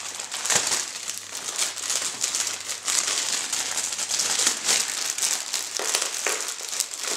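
Plastic bag crinkling and rustling as it is torn open and handled, with many small sharp crackles.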